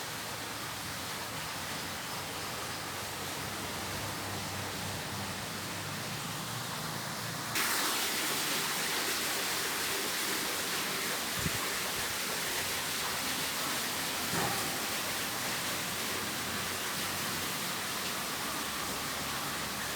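Steady rushing hiss with no clear source, becoming louder and brighter about seven and a half seconds in, with a faint knock a few seconds later.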